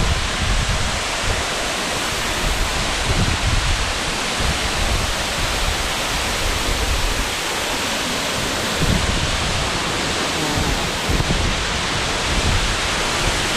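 Large waterfall pouring, a loud, steady rush of falling water, with gusts of wind buffeting the microphone in low rumbles.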